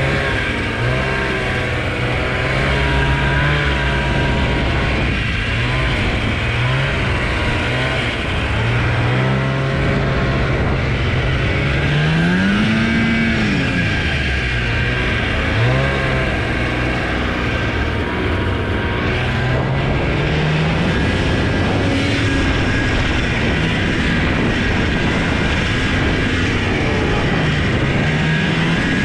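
A 1989 Ski-Doo Enticer 340 snowmobile's two-stroke engine running under load in deep powder, its pitch rising and falling again and again as the throttle is worked, with one longer rev about halfway through.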